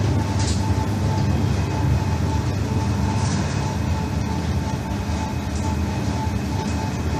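Schindler traction lift car travelling between floors: a steady low rumble with a thin steady whine.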